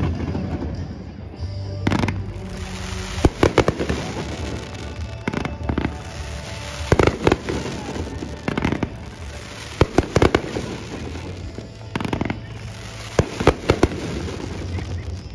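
Aerial firework shells bursting, a series of sharp bangs that come in clusters every one to two seconds.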